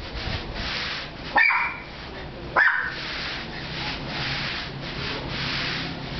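Stiff push broom scrubbed in repeated strokes over a wet, soapy concrete floor, with two short high yelps about a second and a half and two and a half seconds in.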